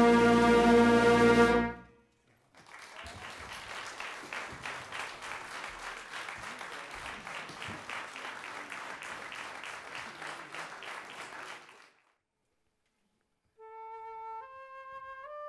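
A concert wind band holds a loud final chord that cuts off sharply, followed by audience applause lasting about nine seconds. After a short silence, a single woodwind starts a slow line of held notes, each one step higher than the last.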